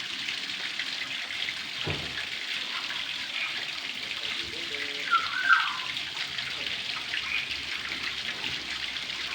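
Water running steadily from a mains water tap, a continuous splashing rush. About five seconds in there is a brief, loud, high squeak.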